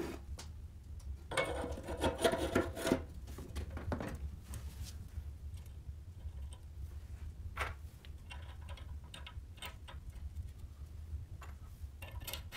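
Small steel bearing parts being handled and fitted onto a motorcycle frame's steering head tube: a burst of metal clinking and scraping a second or so in, then a few sharp clicks as the parts are seated, over a steady low hum.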